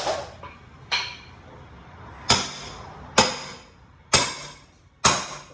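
Hammer strikes ringing on metal, about six blows roughly a second apart, as nails are knocked out of a wall's wooden framing.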